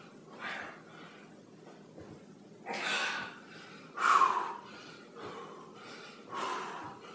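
A man breathing hard, with four heavy, noisy exhalations a second or two apart; the loudest comes about four seconds in. He is out of breath from a hard interval of lunges.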